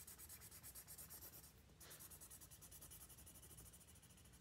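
Felt-tip marker colouring on paper: faint, quick back-and-forth strokes, many a second, with a brief pause about a second and a half in.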